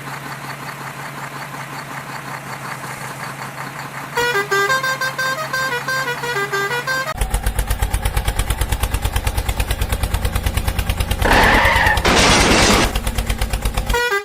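Cartoon vehicle sound effects: a steady engine hum, then a short tune of bleeping notes, then a fast chugging engine with a louder blast a little after eleven seconds in.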